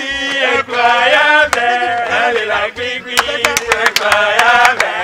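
A voice chanting in a wavering sing-song, with a run of sharp clicks in the second half.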